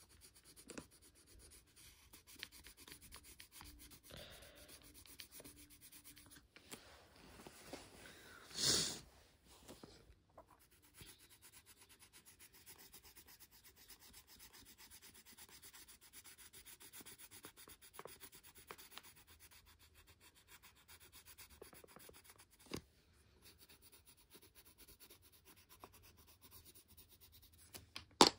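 Coloured pencil rubbing back and forth on colouring-book paper in quick, quiet strokes. About nine seconds in there is a short, louder hiss-like noise, and near the end a sharp click.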